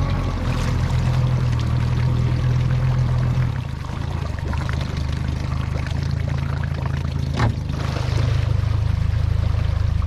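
Boat motor running steadily with water splashing and rushing along the hull. The engine dips about three and a half seconds in and picks up again about eight seconds in, with a single sharp knock just before.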